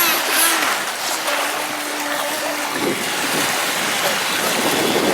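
FT009 radio-controlled speedboat running on sea water: its brushless electric motor gives a wavering whine, then a steady hum, over a growing wash of water and surf noise from about three seconds in.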